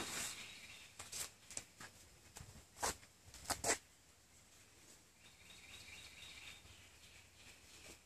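A few light knocks and rustles from hands handling tinder and gear on a wooden table, with the sharpest pair about three and a half seconds in. Faint birdsong in the background in the later half.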